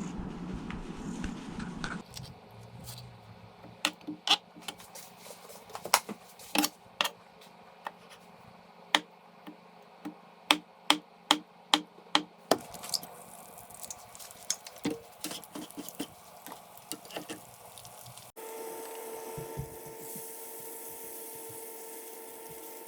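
Kitchen sounds: a run of sharp, irregular clinks and taps of utensils and dishes over a faint low hum. About eighteen seconds in, a steady humming drone takes over.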